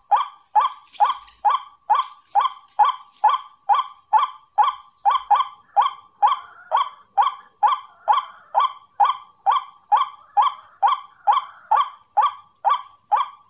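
Recorded white-breasted waterhen (ruak-ruak) call played as a lure: a falling 'kwak' note repeated evenly about three times a second without a break.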